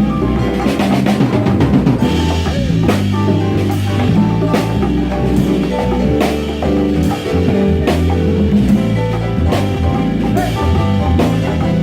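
A band playing an instrumental passage without vocals: drum kit and percussion keeping a steady beat over bass and sustained chords.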